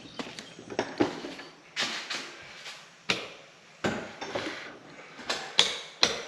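Irregular sharp knocks and clacks on hard surfaces, about ten of them at uneven spacing, each with a short ringing tail.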